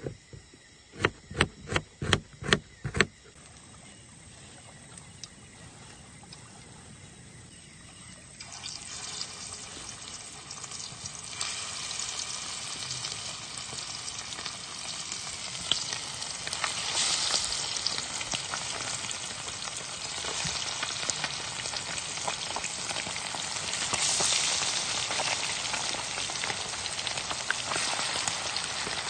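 A quick run of about eight sharp knocks, then, from about a third of the way in, a steady crackling hiss that builds and stays, like sizzling.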